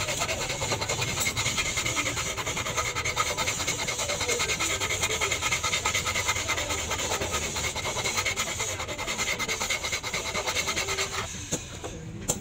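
An axe blade being sharpened by hand: a long sharpening tool is scraped rapidly back and forth across the steel bevel in a steady, continuous rubbing. The scraping stops about a second before the end, and a few light clicks follow.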